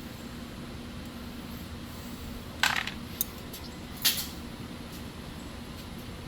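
Small metal parts and tools clinking: a few sharp clinks about halfway through, over a steady low hum.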